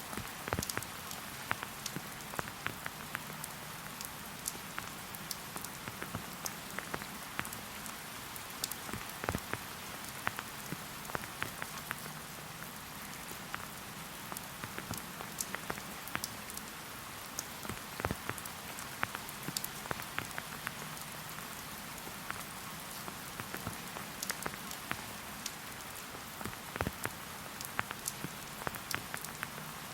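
Steady rain falling in a forest, a soft hiss with many separate drops pattering and ticking close by.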